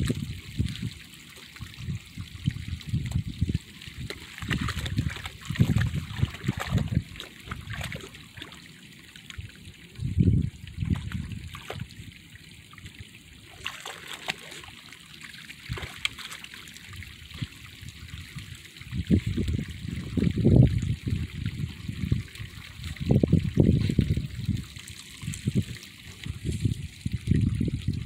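Muddy water trickling and running down a shallow dirt channel, a steady hiss of flowing water. It is broken by irregular low rumbling gusts lasting a second or two, the loudest around ten seconds in and again from about nineteen to twenty-five seconds.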